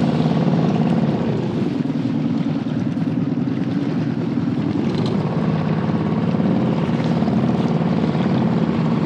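Steady drone of a small boat motor driving a fishing kayak through calm water.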